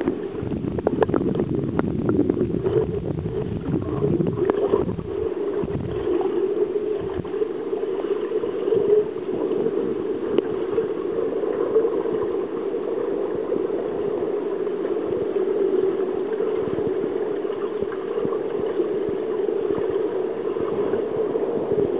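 Muffled underwater noise in a swimming pool picked up by a submerged camera: a steady low rushing hum, with clicks, knocks and rumbling in the first six seconds.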